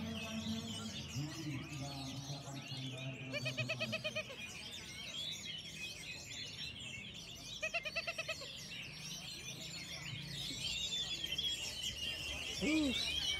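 Many caged orange-headed thrushes singing at once, a dense overlapping tangle of song, with a low murmur of crowd voices underneath. Two short bursts of rapid, evenly pulsed trilling stand out, about three and eight seconds in.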